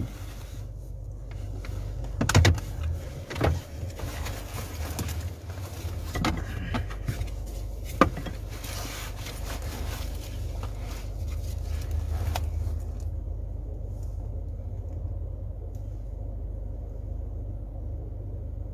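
Low steady hum inside a car cabin, with a handful of scattered knocks and taps in the first dozen seconds. A hiss underneath stops about 13 seconds in, leaving only the hum.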